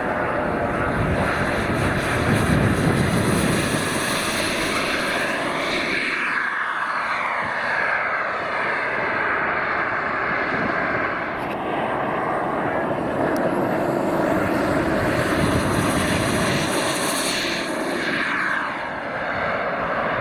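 Radio-controlled model jet's turbine engine running at high power through a take-off and climb-out. Its whine and hiss fall in pitch as the model passes, about a third of the way in and again later.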